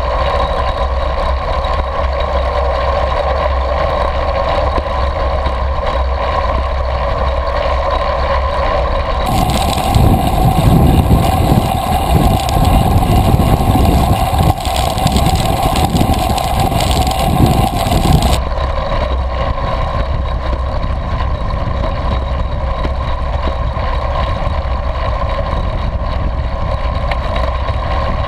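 Wind rushing over the microphone of an action camera on a recumbent trike moving fast on pavement, with a steady rolling hum. About nine seconds in, the sound switches to a second camera low by the front wheel, with heavier, gusty wind buffeting, and switches back about nine seconds later.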